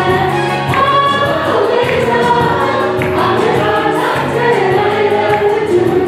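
Gospel choir singing over instrumental backing, a steady, continuous passage of church music.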